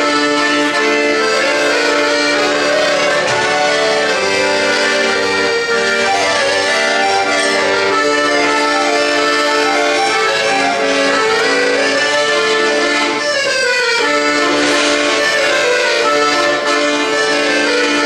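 Piano accordion playing a melody over held chords, with a quick run of falling notes about thirteen seconds in.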